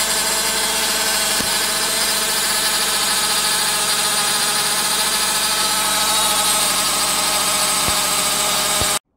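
2009 Nissan Cube idling with a steady whine from its CVT transmission's oil pump over the engine. The owner takes it for the pump cavitating as it strains to draw dirty fluid through a plugged filter screen. The sound cuts off suddenly near the end.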